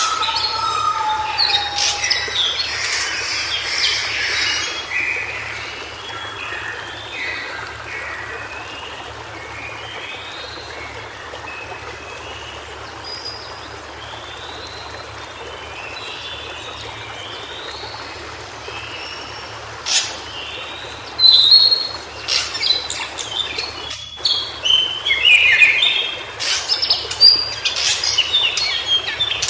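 White-browed shortwing (Brachypteryx montana) singing: a long string of short, quick chirping phrases, sparser in the middle and busier and louder in the last third, with a few sharp clicks near the end.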